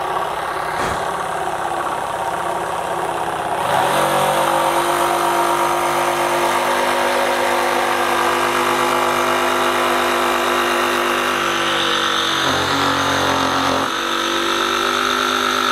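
SKIL 12V brushless jigsaw cutting wood in auto mode: it runs slowly at first, then about four seconds in it speeds up and gets louder, with a steadier, higher motor hum, as it senses the blade pressing into the wood. Near the end it slows briefly and then picks back up.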